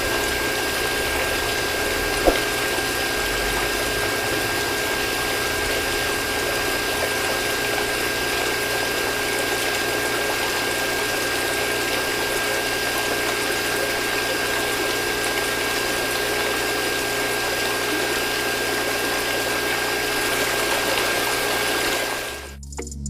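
Mini DC-motor water pump running steadily, a constant motor whine over the rush and splash of pumped water; it stops shortly before the end.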